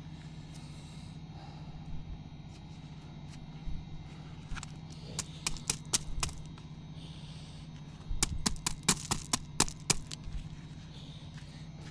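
Weed stems and small woody growth cracking and snapping as they are cleared: a scattered run of sharp snaps about halfway through and a quicker burst of them near the end, over a steady low hum.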